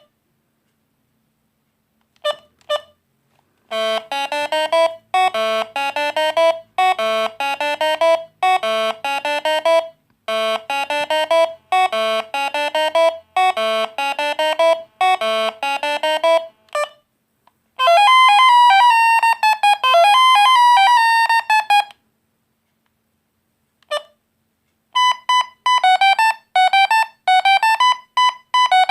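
Alcatel One Touch Easy DB mobile phone playing its ringtones, one buzzy note at a time. A couple of short beeps lead into one tune, then a second tune of fast rapid notes, then after a single beep a third tune starts, with brief silences between them.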